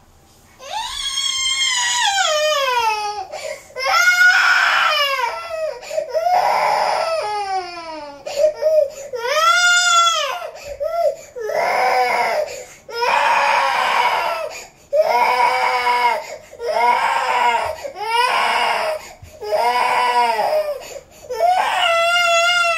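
Toddler crying in long wails, one after another, about a dozen of them with short breaths between, the pitch bending up and falling away in each. A fretful cry of frustration at not being let outside.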